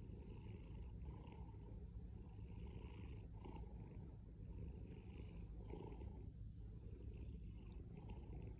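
Domestic cat purring steadily: a continuous low rumble with a faint swell every second or so.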